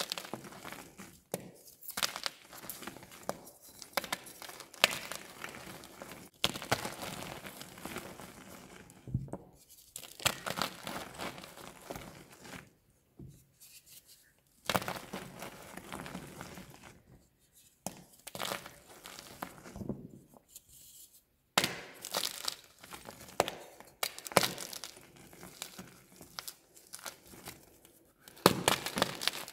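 Blocks of gym chalk being crushed and crumbled in bare hands: irregular bursts of dry crunching and crumbling, with a few sharper cracks as pieces break off and short pauses between squeezes.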